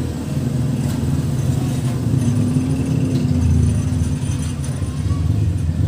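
Low, steady rumble of an engine running.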